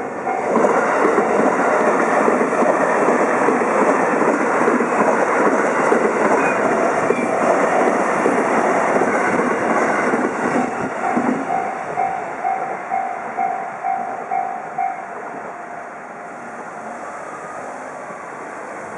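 A train passing over a railway level crossing, its wheels clattering rhythmically over the rail joints, then fading away after about 15 seconds. The crossing's warning bell dings at about two beats a second behind the train and stops near the end of the train's passing.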